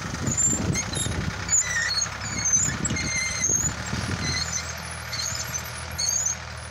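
Ford 3600 tractor's engine running as it pulls a seed drill across the field, heard from a distance. An uneven low rumble over the first four seconds settles into a steady low drone.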